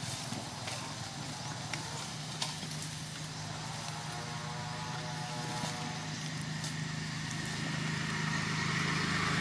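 A vehicle engine running with a steady low hum that grows louder near the end.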